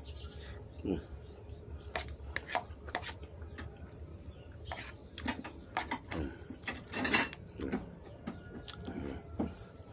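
Close-up eating sounds: a metal spoon scooping and clinking in a plastic bowl of goat curry and rice, with wet chewing and lip smacks as irregular sharp clicks. The loudest cluster comes about seven seconds in. A low steady hum runs underneath.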